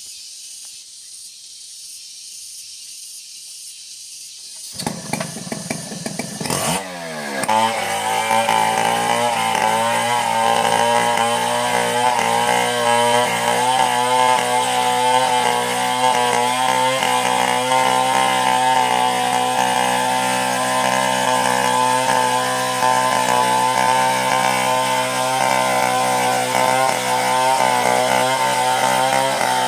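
A steady high hiss, then a Stihl chainsaw starts about five seconds in. It sputters in a few uneven bursts, rises sharply in pitch, and then runs steadily at high revs.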